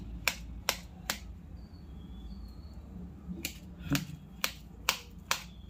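Knife blade tapping the bottom of a stainless-steel bowl while chopping soft peeled bananas. There is a quick run of three sharp clicks, a pause of about two seconds, then more clicks at two or three a second.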